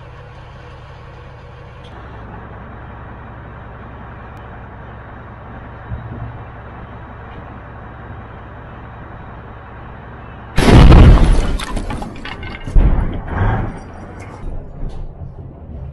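Steady low rumble of an armoured vehicle's diesel engine, then a tank's main gun firing about ten seconds in: a sudden, very loud blast, followed about two seconds later by a second loud bang and trailing crackles.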